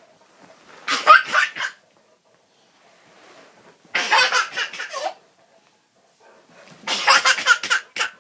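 A person laughing hard in three bouts of about a second each, with short pauses between them.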